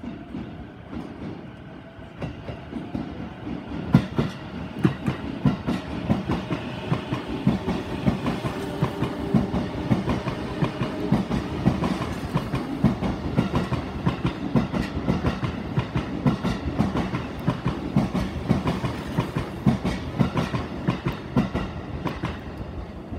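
Chūō Line Rapid E233-series electric train pulling out and accelerating, its traction motors giving a whine that rises in pitch. From about four seconds in, the carriages pass close below with a dense clatter of wheels over rail joints and points.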